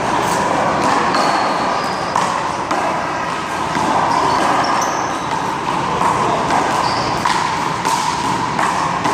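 One-wall handball play: a hard rubber ball slapped by hand and smacking off the wall and pavement in short sharp knocks, over a steady background hiss.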